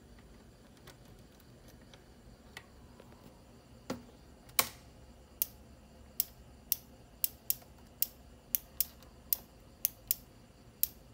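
Petrol fuel injector on a test bench clicking as the engine control unit pulses it: a few faint ticks, then from about four and a half seconds in sharp clicks about two a second, slightly uneven.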